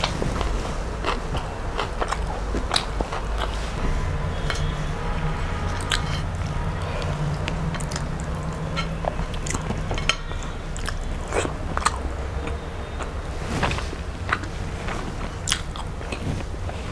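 A person chewing and eating fish and rice, with many small, sharp mouth clicks and smacks.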